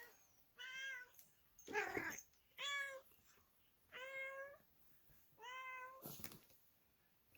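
Domestic cat meowing, about four or five separate meows, each about half a second long, with short pauses between them.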